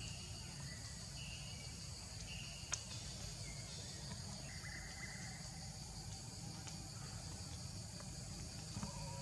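Steady insect chirring with low background rumble, broken by a few short high chirps and one sharp click about three seconds in.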